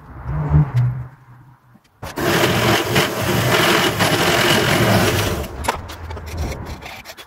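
Benchtop mill-drill cutting into a clamped piece of wood for about three seconds, a loud steady grinding whir, then easing off and dying away. It is preceded by a short low hum in the first second.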